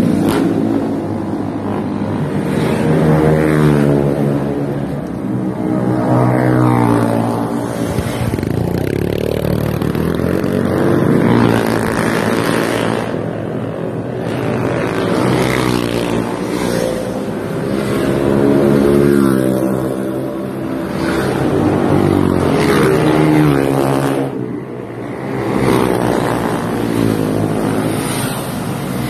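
Motorcycle engines revving and riding past one after another, their pitch rising and falling every few seconds.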